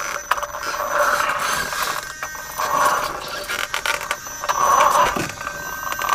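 Small electric inspection rover with crawler tyres driving over gravel and dirt. Its drive motors and gears whine in about three surges as it moves, with scraping and crunching from the tyres and chassis.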